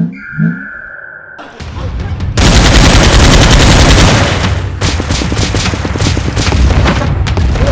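Rapid automatic gunfire, a dubbed gun-battle sound effect. It comes in about a second and a half in and swells into a dense, loud volley, then goes on as a fast run of separate shots.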